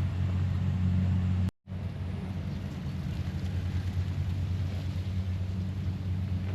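A motor engine running steadily with a low, even hum. The sound cuts out completely for a moment about one and a half seconds in, then resumes.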